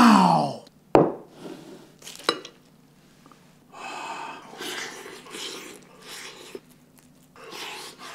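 A man's loud exclamation, falling in pitch, then a sharp knock about a second in, like a plate set down on a wooden table. After that come soft wet squishing and tearing as a cheese-covered, sauced Japanese hamburg steak is pulled apart by gloved hands, and near the end a bite into the meat with chewing.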